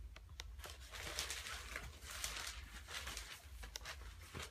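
Irregular rustling and crinkling of newspaper and bedding with small clicks as a cat shifts its body on them.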